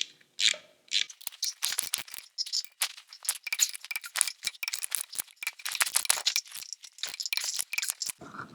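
Socket ratchet wrench clicking in quick repeated runs as the backing-plate bolts are run into the steering knuckle.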